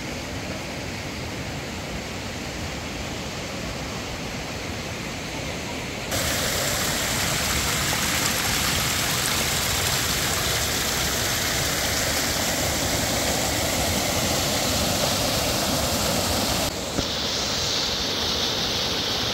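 Rushing water of a mountain stream and small waterfall, a steady roar. About six seconds in it becomes louder and brighter as water spills over rocks close by, and near the end it turns to a higher hiss of falling water.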